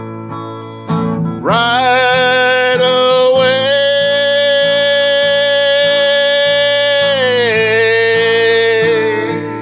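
Acoustic guitar strumming under a man's voice holding one long sung note. The voice slides up into the note about a second and a half in, holds it for several seconds, then drops to a lower note near the end as the song closes.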